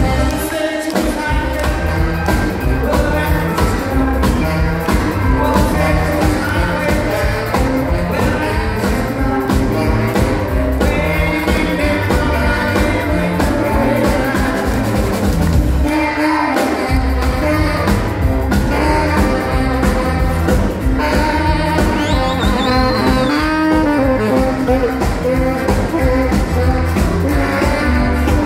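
Live band playing through a PA: a man singing lead into a microphone over saxophone, electric bass and drums. The bass and drums stop briefly twice, about a second in and about halfway through.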